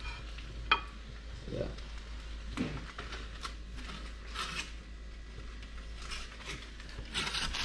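Kitchen tongs clink sharply against a plate about a second in, with a brief ring, as a piece of cooked fish is set down. Softer scrapes and rustles of handling follow, more of them near the end, over a steady low hum.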